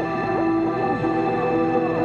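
Ambient background music: steady held tones with repeated swooping glides in pitch.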